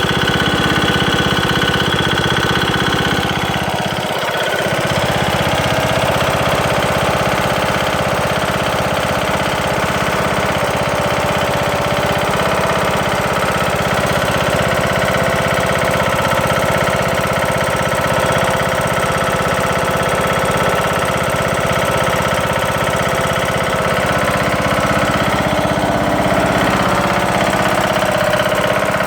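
Briggs & Stratton engine of a Craftsman LT2000 lawn tractor running steadily with a loud knocking noise, which appeared after its camshaft and timing gear were replaced and whose cause is not yet known.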